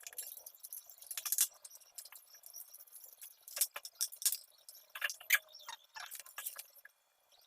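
Metal parts of an angle grinder stand clinking and clicking as they are handled and fitted together, in irregular knocks and rattles with no steady rhythm.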